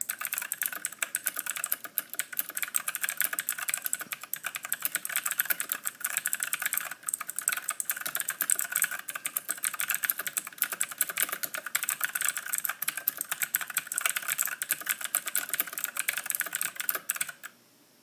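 Fast continuous typing on an E-Element Z-88 mechanical keyboard with clicky Outemu Blue switches: a dense run of key clicks that stops near the end.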